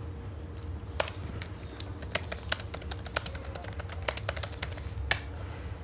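Typing on a laptop keyboard: a quick run of key clicks starts about a second in and stops about five seconds in, with a sharper tap at each end. Under it runs a low steady hum.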